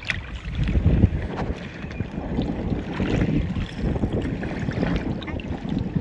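Wind buffeting the microphone in uneven gusts, over water washing and sloshing in the shallows.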